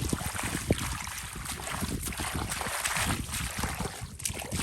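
Water splashing and sloshing irregularly in a flooded field, with wind buffeting the microphone.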